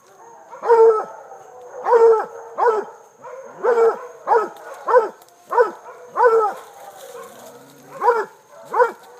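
Treeing walker coonhound baying at a hog: a string of about ten loud, pitched barks at uneven spacing, with a pause of a second and a half near the end.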